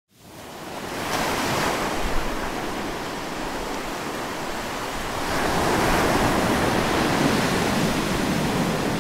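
Steady rush of wind and sea waves. It fades in over the first second and grows a little louder about five seconds in.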